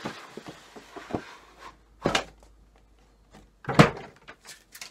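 Cardboard model-car box being handled: a soft scraping rustle at the start, then two sharp knocks, about two seconds in and again near four seconds, the second the louder, with light taps between.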